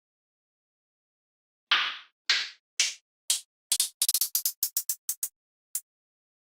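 A string of sharp, slap-like sound effects: after a second and a half of silence, four separate hits about half a second apart, then a quick run of about a dozen that speeds up, and one last hit near the end.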